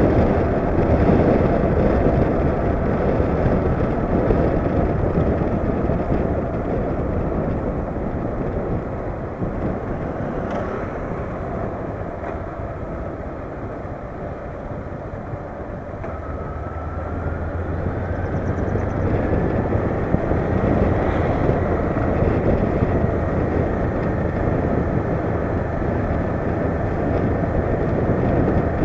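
Honda CB500X parallel-twin motorcycle engine running on the move, under heavy wind rush on the helmet or bike-mounted camera. The sound eases off around the middle, then builds again as the engine note rises.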